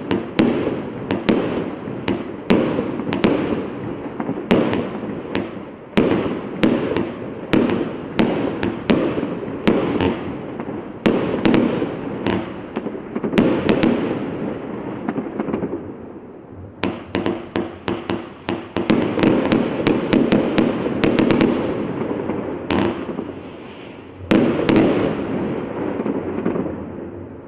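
A 72-shot compound firework (cake) firing in quick succession: sharp launch bangs, several a second, each followed by crackling bursts. The firing eases off briefly in the middle, then picks up again.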